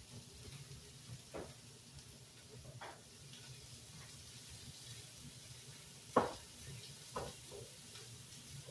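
Chicken breasts sizzling on a grill pan and a pot of pasta boiling, over a steady low hum. A few short knocks come in the second half, the loudest about six seconds in, as a glass jar is handled.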